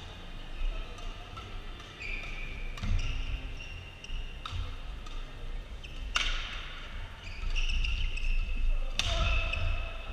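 Badminton doubles rally: rackets striking the shuttlecock in sharp cracks that ring in the hall, the loudest three about halfway and near the end, with shoes squeaking on the court floor and footfalls thudding between strokes.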